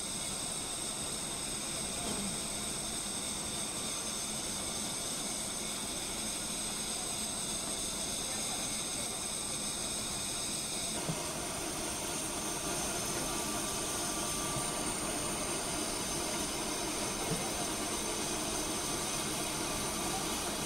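Engine lathe running with a parting tool cutting a spinning bronze workpiece under poured coolant: a steady machine whir and hiss with a high, steady whine. About halfway through, the pitch of the whine changes.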